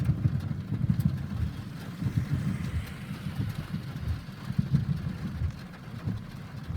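Heavy thunderstorm rain falling steadily, with a low, uneven rumble underneath.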